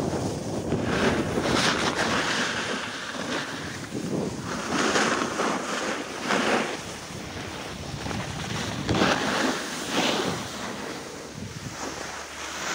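Skis sliding and scraping over packed snow, with louder swishes every second or two, and wind rushing over the microphone.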